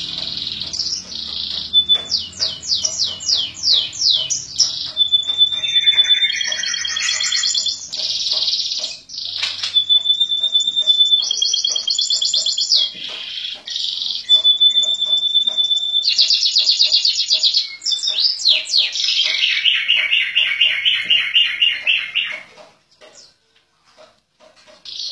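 Domestic canary singing a long continuous song of rolling trills, rapid repeated notes and drawn-out whistles, breaking off about twenty-two seconds in.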